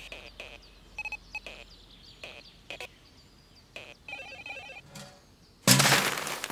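Electronic bleeps and chirps from a handheld video game, in short bursts of patterned beeps with a few clicks. About 5.7 seconds in comes a loud, short crash as a wastebasket is knocked over.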